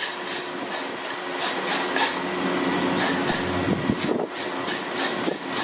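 Hand fish scaler scraping the scales off a red snapper in short repeated strokes, about two a second, over a steady background hum.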